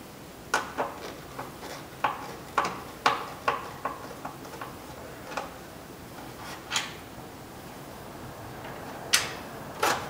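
Irregular sharp clicks and taps of a screwdriver and hard plastic trim as a door switch is worked loose from a plastic car door panel, with two louder clacks near the end.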